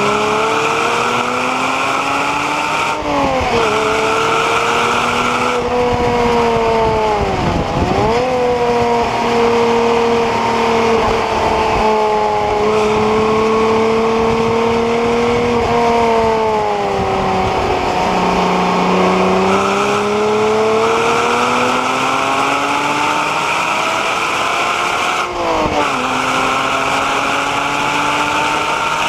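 Porsche Cayman 987's 2.9-litre flat-six engine being driven hard on track: revs climb under acceleration and drop sharply at upshifts a few seconds in and again near the end, with a quick dip and recovery at about eight seconds and a slower fall and rise in revs through the middle as the car slows for a corner and pulls out of it.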